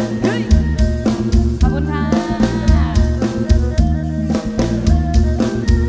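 Instrumental passage of Isan dance music from a rot hae sound-truck band: a steady drum-kit beat with deep bass notes, and sliding lead lines from a pitched instrument about two to three seconds in.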